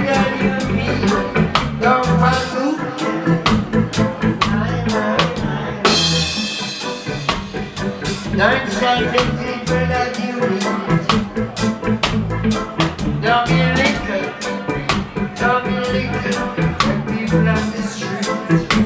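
Live reggae band playing loud: a steady drum-kit beat and a heavy bass line, with a voice singing over it. A bright crash comes about six seconds in.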